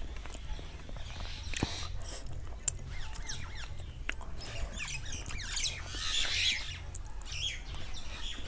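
Close mouth sounds of a person eating rice and fish curry with her fingers: rice squished by hand on a steel plate, then chewing and lip smacks, with a sharp click a little under three seconds in. Birds chirp in the background, most strongly about six seconds in.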